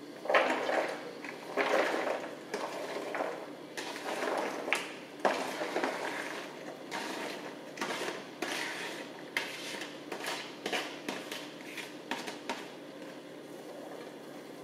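Chopped onions, garlic, jalapeños and celery pushed by hand off a plate into a Dutch oven: irregular rustling and patting of the vegetables with light knocks, thinning out about twelve seconds in.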